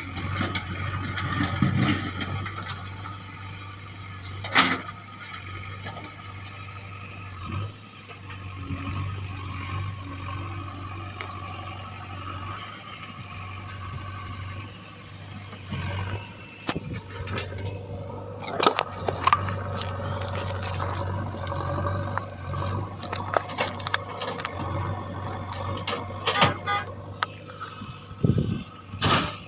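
JCB backhoe loader's diesel engine running steadily while digging, with scattered sharp knocks and clanks from the working machine.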